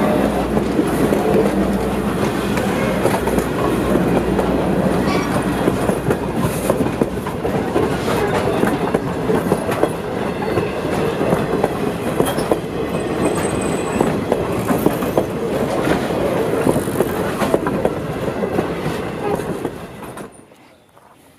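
A train rolling past, its wheels clacking over the rail joints, with a brief faint high squeal near the middle; the sound cuts off abruptly just before the end.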